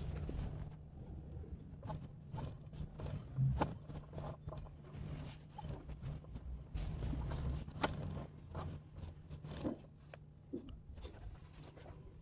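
Scattered, irregular clicks and knocks of hand work on parts over a low steady hum.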